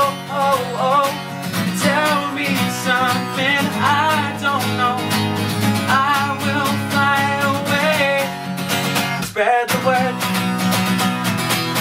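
A pop-folk song: strummed acoustic guitar under a sung wordless 'oh, oh, oh' melody. The music breaks off briefly about nine and a half seconds in, then the strumming picks up again.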